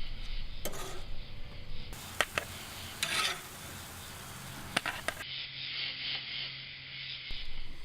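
Quiet handling noises of food and utensils being moved about: a few short clicks and some rubbing and scraping against a hiss of background noise.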